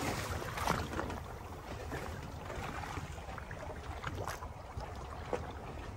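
Water lapping and splashing against the hull of a small boat at sea, with wind rumbling on the microphone. A few sharper slaps stand out, one about a second in and two more near the end.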